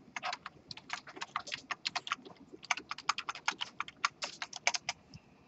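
Typing on a computer keyboard: a quick, irregular run of keystroke clicks that stops shortly before the end.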